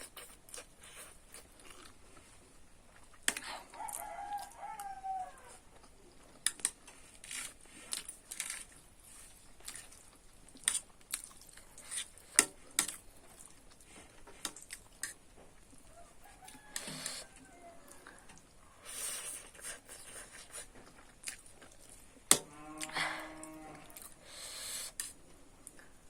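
Noodles being eaten: scattered short clicks and mouth sounds of chewing and slurping, with a rooster crowing in the background, most clearly near the end.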